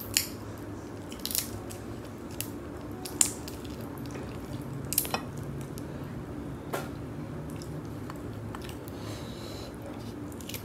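Boiled blue crab shell being cracked and pulled apart by hand, giving a handful of sharp cracks every second or two.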